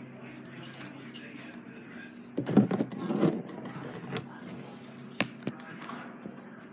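Knocking and rubbing handling noise as the recording phone is bumped and shifted on the tabletop, loudest about two and a half seconds in, followed by a few sharp clicks.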